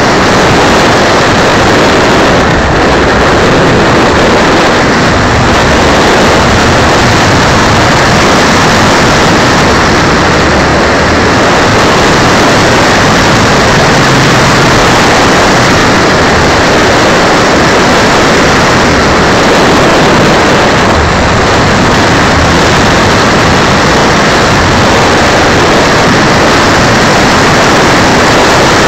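Loud, steady rushing of wind and propeller noise picked up by a keychain camera riding on an electric Dynam Pitts RC plane in flight, with no distinct motor tone standing out.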